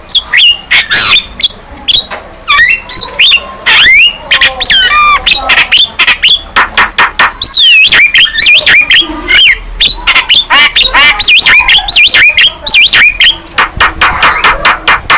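Young Javan myna singing in full voice: a rapid, dense run of harsh squawks and chatter mixed with short whistles that glide up and down, with only brief gaps between notes.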